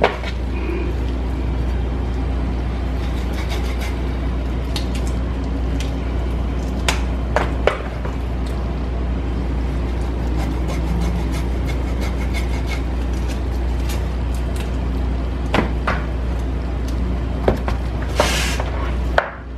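Scattered clicks and taps of a knife and hands working raw chicken pieces in a plastic bowl, over a steady low hum.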